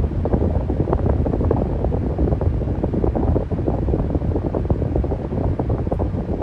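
Electric fan running steadily: an even rush of moving air, strongest in the low range, with a rapid flutter in it.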